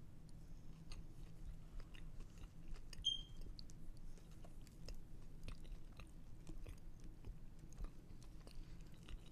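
Close-miked chewing of food: faint, irregular wet mouth clicks over a steady low hum, with one short high chirp about three seconds in.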